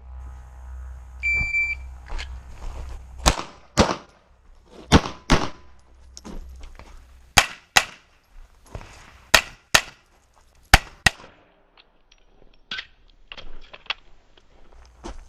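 A shot-timer beep starts the run, then a pistol fires about ten shots in quick pairs over some eight seconds. A few fainter cracks follow near the end.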